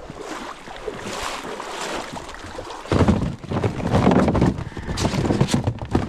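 Plastic duck decoys and their cords being handled and stowed in a kayak: rustling and knocking, which gets louder about three seconds in.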